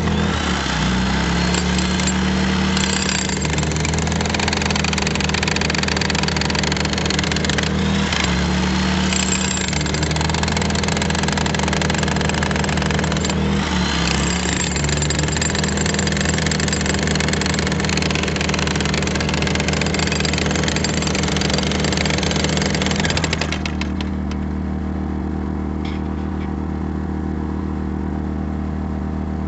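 Corded electric demolition hammer chipping into a concrete footer, a loud continuous hammering clatter that stops suddenly about 23 seconds in. A steady engine hum runs underneath and carries on after the hammer stops.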